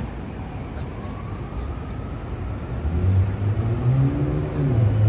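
City street traffic: a siren wails faintly in the distance. From about three seconds in, a passing vehicle's engine grows loud, its low drone rising in pitch.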